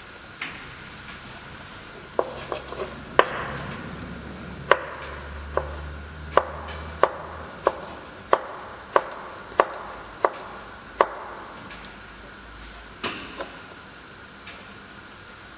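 Chef's knife cutting a yellow vegetable into fine julienne strips on a plastic cutting board. Each stroke gives a crisp knock of the blade on the board, about one and a half a second; they stop about eleven seconds in, and one more knock follows shortly after.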